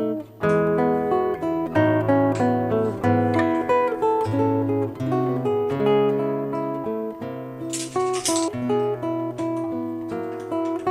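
Background music: acoustic guitar playing a plucked and strummed tune over low held notes.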